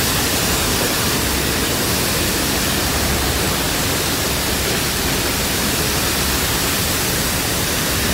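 Steady, loud roar of Niagara Falls' water crashing down just outside a tunnel portal behind the falls.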